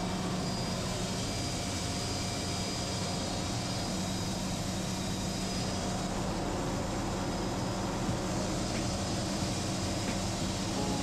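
Steady mechanical drone with a constant low hum, like an engine or aircraft running nearby.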